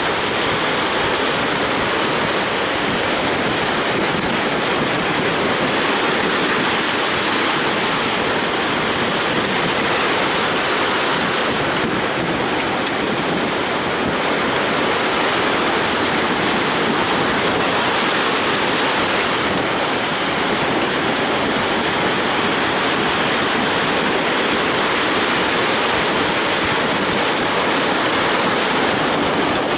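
Heavy surf from a rough sea breaking on the shore, a dense, steady rush of water noise with wind mixed in.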